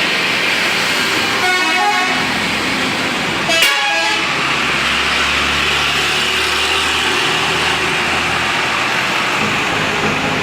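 Indonesian bus 'telolet' horn sounding short runs of melodic toots about two seconds in and again, brightest, around three and a half seconds, over steady road and traffic noise. A low bus engine hum carries on from about four seconds.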